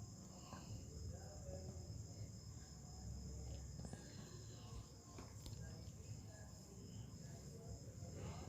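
Faint, steady high trill of crickets, with a low rumble and a few small clicks underneath.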